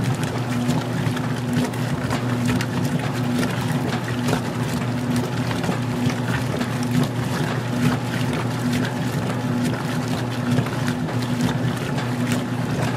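Magic Chef 20-pound washer in its wash phase: a steady motor hum under continuous churning and sloshing of water, with small splashes throughout.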